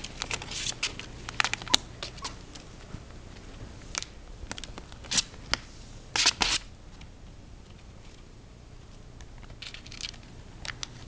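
Four-week-old Shetland sheepdog puppies scrabbling on a quilt and pawing at a wire exercise pen: scattered short scratches and rustles, with the loudest pair about six seconds in.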